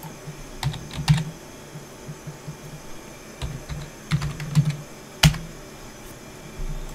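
Typing on a computer keyboard: a few short runs of key presses, then one louder single click a little over five seconds in.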